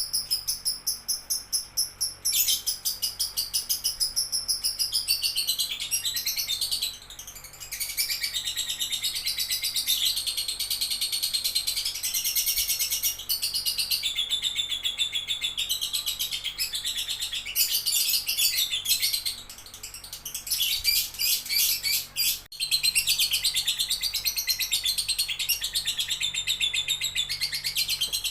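Lovebird singing a long run of rapid, high chattering chirps, nearly without pause, with a short lull about seven seconds in and a brief break about twenty-two seconds in.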